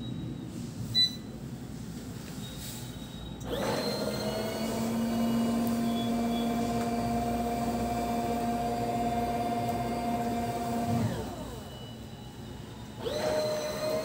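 Foldable mini washing machine's motor starting up after a click, running with a steady hum as it churns the water in the tub, then winding down with a falling pitch about eleven seconds in. It starts again about a second before the end.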